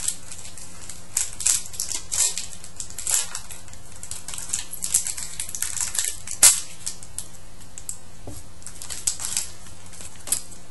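Foil wrapper of a hockey trading card pack being torn open and crinkled: irregular sharp crackles and rustles, the loudest about six and a half seconds in.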